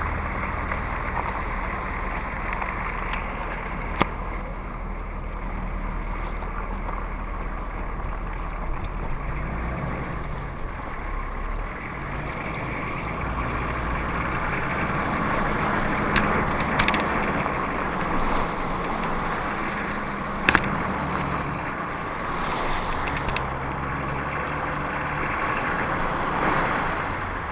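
4x4 engine running at low speed with tyres churning through mud and standing water, heard from inside the cabin. A few sharp knocks come through as it goes over the ruts.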